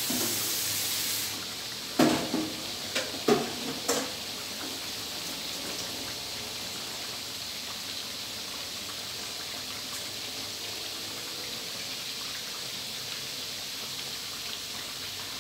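Chicken frames deep-frying in a wok of bubbling oil: a steady sizzle and bubbling, with a louder hiss in the first second or so and a handful of sharp clicks between about two and four seconds in.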